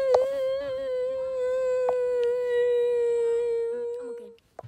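A boy's voice holding one long, steady hummed or sung note for about four seconds, then cutting off abruptly.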